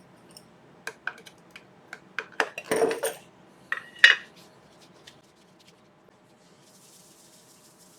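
A tin of microcrystalline wax being handled and opened: a run of sharp metallic clinks and knocks, the loudest about four seconds in. Faint soft rubbing follows.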